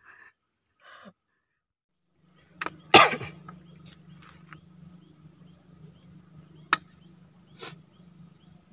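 Insects shrilling steadily with a low steady hum underneath, starting a couple of seconds in after a near-silent opening. A single sharp bang about three seconds in is the loudest sound, followed by a few lighter clicks.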